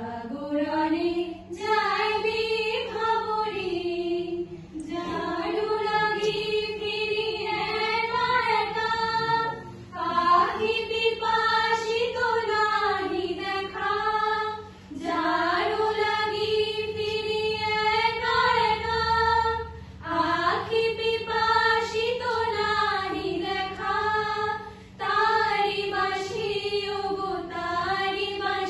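A group of women singing a song together, in long held phrases broken by short pauses for breath every few seconds.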